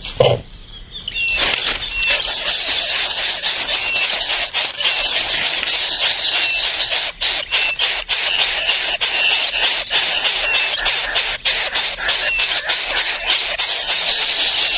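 Insects chirring steadily, a fast pulsed high trill, with a few short, high falling peeps and scattered soft clicks over a constant hiss.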